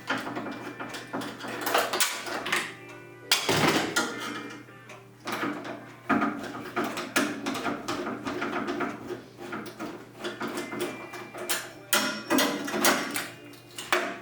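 Background music with a steady tone, overlaid with frequent clatter and knocks of plastic and metal parts being handled as a microwave oven is taken apart.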